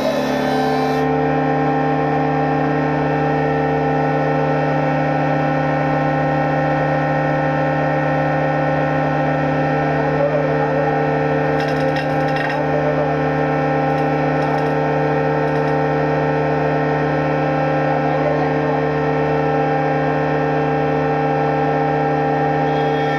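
Sawmill woodworking machine running with a steady mechanical hum, with a few light clicks about halfway through.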